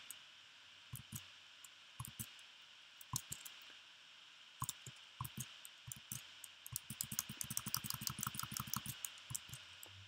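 Clicking on a laptop: scattered single clicks, then a fast run of about ten clicks a second between roughly seven and nine seconds in, over faint hiss.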